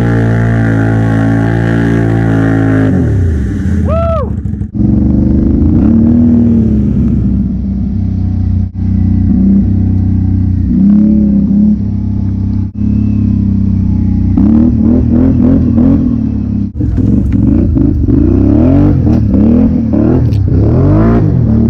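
A steady, deep droning tone for about the first three seconds. Then a Can-Am Outlander 570 ATV's V-twin engine revving up and down as it is ridden through mud, its note rising and falling and dropping away briefly every few seconds.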